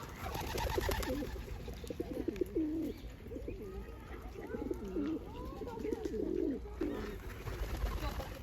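Pigeons cooing, a string of low rolling coos one after another, with fainter chirps from other small birds behind them.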